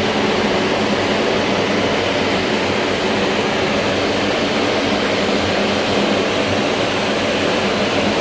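Carrier Xarios 500 truck refrigeration system running steadily: the engine-driven road compressor and evaporator fan motors running together with the truck's engine, a constant mechanical hum. Everything is running normally after the repair.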